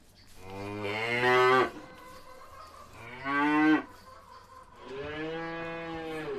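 Domestic cow mooing three times in long, drawn-out calls; the third moo is still going at the end.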